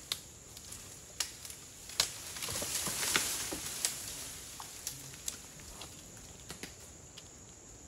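Asian elephant pushing through dry scrub: scattered sharp twig snaps and dry leaves rustling, with a longer swell of rustling from about two to four seconds in.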